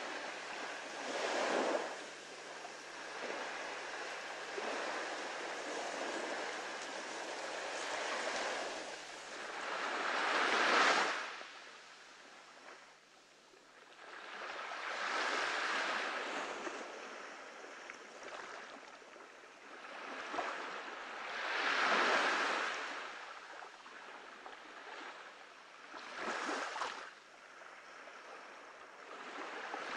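Surf washing onto a beach, a rushing sound that swells and fades in about five slow surges.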